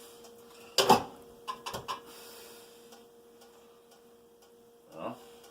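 Kitchen clatter: a sharp knock of cookware about a second in, followed by a few lighter clicks, over a steady faint hum.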